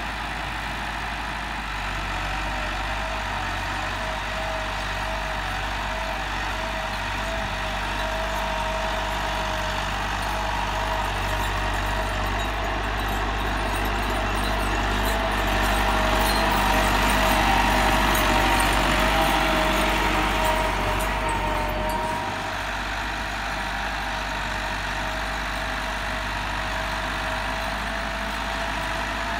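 Massey Ferguson 385 tractor's four-cylinder diesel engine running steadily under load while pulling a tine cultivator through the soil. It grows louder toward the middle as the tractor comes nearer, then drops back about two-thirds of the way through.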